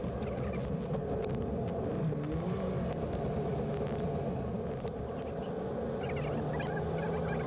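Steady road and engine noise of a car driving at low speed, heard from inside the cabin.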